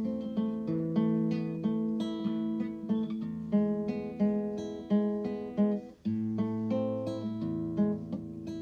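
Background music of plucked acoustic guitar, with a brief break about six seconds in.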